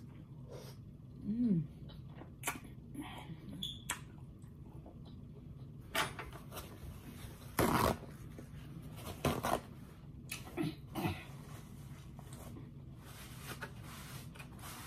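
Close-miked eating sounds: chewing and mouth noises, with a short hummed "mm" about a second and a half in. Several sharp rustles of paper towel come between about six and nine seconds in, the loudest as sheets are pulled apart.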